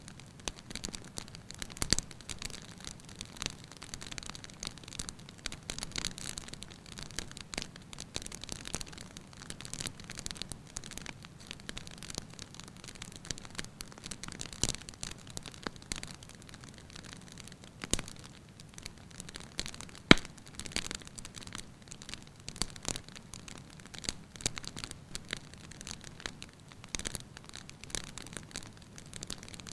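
Wood fire burning in a fireplace, crackling with irregular small pops, and a sharper, louder pop about twenty seconds in.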